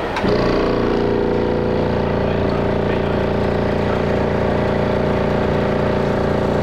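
A motor starts a fraction of a second in and runs with a steady hum while the electric stud drive tool lifts an unthreaded reactor vessel head stud.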